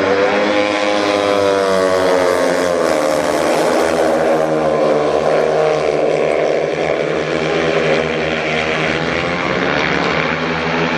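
Four 500 cc single-cylinder speedway motorcycles racing together on a dirt track. The engines run hard with their pitch rising and falling as the bikes slide through the turn and accelerate down the straight.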